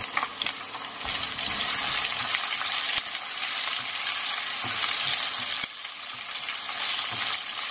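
Sliced onions sizzling in hot oil in a wok, stirred with a spatula, with an occasional light tap of the spatula on the pan.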